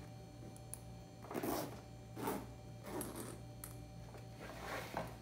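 Hands rummaging in a leather backpack and pulling its metal zipper closed: a few short, faint strokes.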